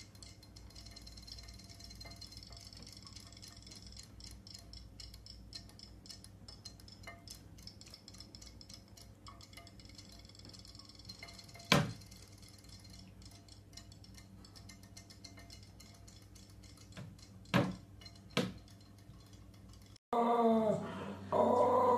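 Battery-powered robot fish toys ticking faintly and rapidly as they swim in a glass bowl of water, with three sharp glass clinks in the second half as a kitten paws at them. Near the end a puppy growls and barks, much louder.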